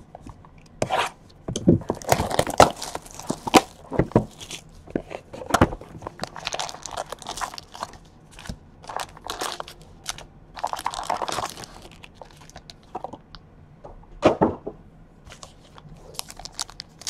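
Cardboard baseball card hobby box being opened by hand, with packs pulled out and set down: irregular crinkles, rustles, scrapes and light taps in several bursts.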